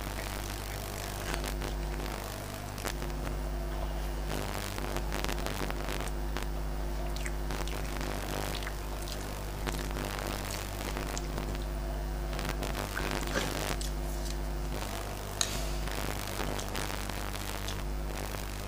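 Fingers mixing rice and fried water spinach on a plate, with soft scraping and clicking against the plate and eating sounds, over a steady low hum.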